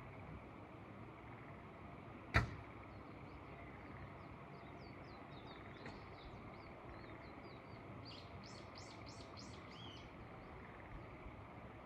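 Small birds chirping and twittering over a steady hiss of wind and open-air ambience, with a quick run of about seven sharp rising calls near the end. One sharp click about two seconds in is the loudest sound.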